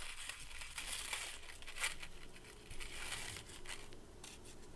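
Hands handling a necklace and the clutter around it: light crinkling and rustling with small scattered clicks.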